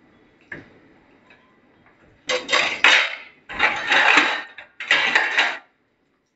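Bathua-leaf pakora batter dropped into hot oil in a kadhai, the oil sizzling in three spells of hiss over the second half. A few faint clicks come before it.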